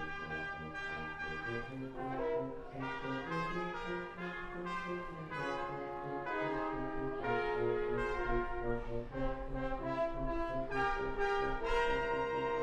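Brass quintet of two trumpets, French horn, trombone and tuba playing an arranged pop tune, the tuba pulsing a bass line under the moving upper parts; the group settles onto longer held notes near the end.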